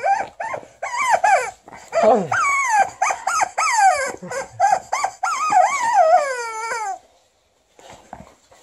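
Rubber chicken squeaker toy squawking in a rapid run of short, wavering squeals as a malamute chews and squeezes it, with a long falling squeal near the end; it cuts off suddenly about seven seconds in.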